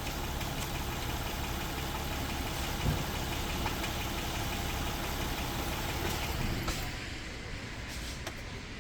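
2009 Honda Odyssey's 3.5-litre V6 idling steadily, then switched off about seven seconds in, leaving a fainter hum.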